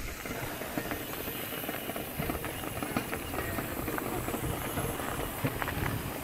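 Mountain bike rolling over a gravel dirt trail: steady tyre crunch with many small clicks and rattles, and wind rumbling on the microphone.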